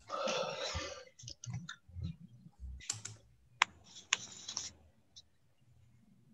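Computer keyboard keys being tapped and a mouse clicking, in scattered short clicks and rustles, with one sharp click about three and a half seconds in. A short rustling noise in the first second is the loudest part.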